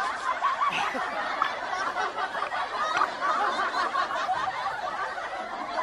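Many overlapping cackling, laughter-like voices forming a dense, continuous chatter.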